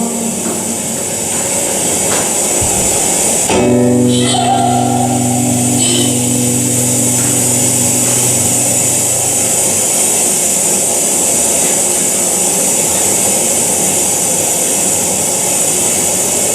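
Experimental noise-music soundscape: a dense, hissing drone of sound. A steady low pitched tone with overtones comes in about three and a half seconds in and fades out about six seconds later.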